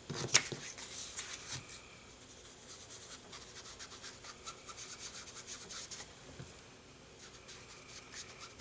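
Foam sponge dauber dabbing and rubbing ink onto cardstock: soft, repeated scratchy strokes, after a light click or two at the start.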